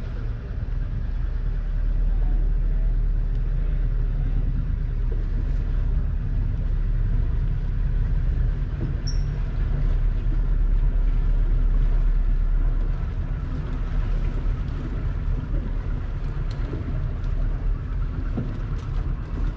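A boat under way: a steady low rumble.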